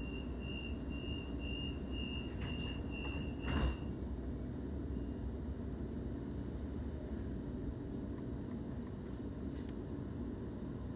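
Train door-closing warning: a rapid high beeping for about four seconds, then the doors shut with a sharp thud. A steady low rumble of the train carries on as it begins to pull away near the end.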